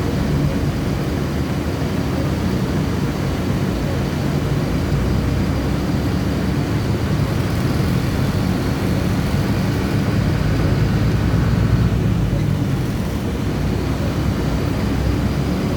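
City bus running, heard from the driver's seat: a steady low engine and road drone that holds level throughout.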